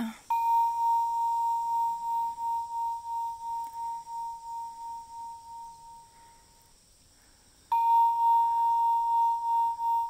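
OffGrid Mindfulness clock's electronic low chime: a soft, bell-like tone that rings and fades with a slight pulsing over about six seconds, then sounds again about a second later as the chime repeats.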